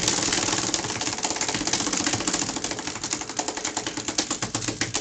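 Spinning prize wheel ticking as it turns: a rapid run of clicks that gradually spreads out as the wheel slows toward a stop.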